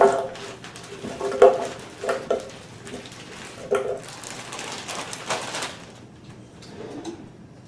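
Frozen strawberries clattering into a container as they are added for a smoothie: several separate knocks with a short ring, then quieter shuffling.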